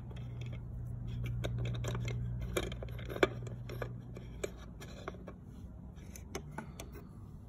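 Small plastic pieces of a Peppa Pig house playset clicking and tapping against its plastic base as they are moved and set in place: a scatter of light clicks, one sharper than the rest about three seconds in. A low steady hum runs underneath and fades out about halfway.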